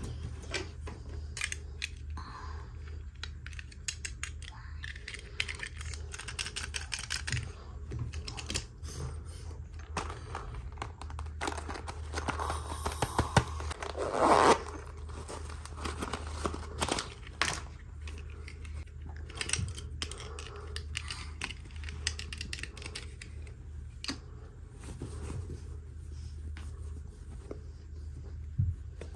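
Toy packaging being opened by hand: tearing and crinkling with many small clicks and taps, over a steady low hum. A longer, louder rustle comes about halfway through.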